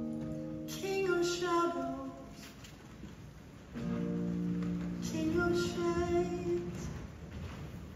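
Electric guitar playing slow, ringing chords, a new chord struck a little under four seconds in, with a high solo voice singing a wavering melody over them twice.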